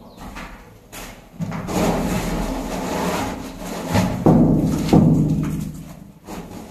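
A wooden stepladder being carried and handled, scraping and knocking, with sharp wooden knocks about four and five seconds in.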